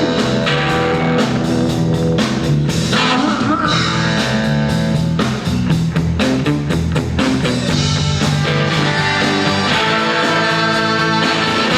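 Rock band playing live, with electric guitar, bass and drums keeping a steady beat, in an instrumental passage without lead vocals.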